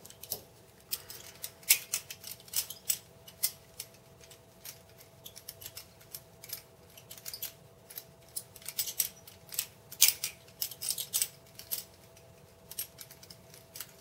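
Balisong (butterfly knife) being flipped in the hand: a quick, irregular run of metallic clicks and clacks as the handles swing around and strike the tang and each other, with a couple of sharper clacks about two seconds in and near ten seconds in. A faint steady hum lies underneath.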